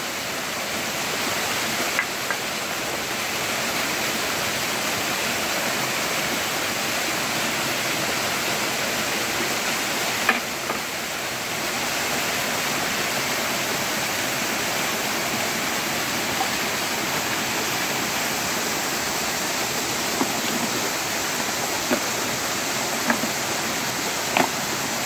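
Small mountain stream cascading over rocks in a steady, even rush of water. A few short sharp knocks stand out against it now and then.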